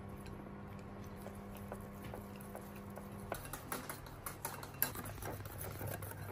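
A small metal whisk stirring grass jelly powder and water in a glass bowl: soft wet stirring with light ticks of metal against glass. The ticks grow quicker and busier after about three seconds, over a faint steady hum.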